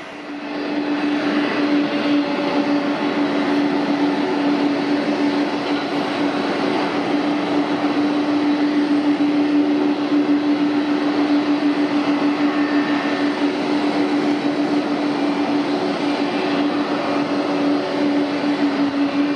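Jet engines of a Boeing 777 airliner running at taxi power as it moves off: a loud, steady drone of hiss with one constant low hum.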